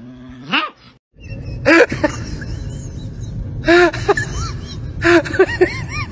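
A husky gives one short whine that rises steeply in pitch. Then a dog barks in short, spaced barks, some in quick runs of two or three, over a steady outdoor background noise.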